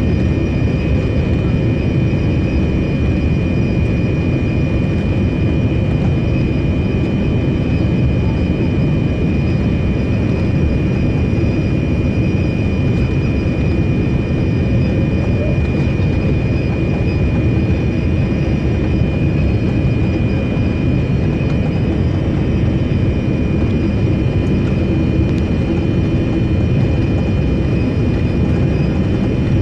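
Cabin noise inside an Air India Boeing 787 Dreamliner on its approach: a steady, loud low rush of engines and airflow, with a thin steady high whine over it.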